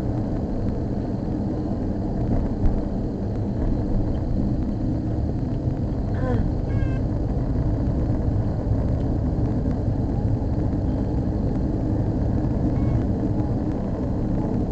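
Steady engine and road rumble of a Mitsubishi Delica D:5 driving slowly along a narrow road, heard from inside the cabin.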